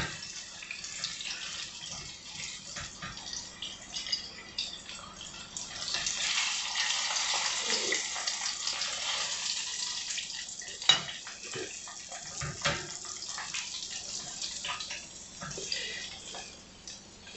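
Salmon bites sizzling in hot frying oil, with a few sharp clinks and scrapes of a slotted spatula against the pan as the pieces are lifted out. The sizzle swells in the middle.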